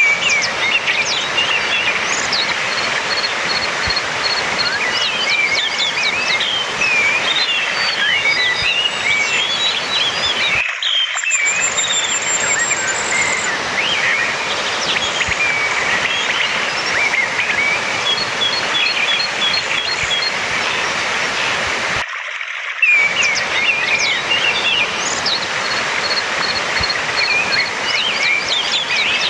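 Orange-headed thrush singing a varied, rapid song of quick whistled and chattering phrases with short series of repeated notes, over a steady rushing background noise. The sound drops out briefly twice, about eleven and twenty-two seconds in, then carries on.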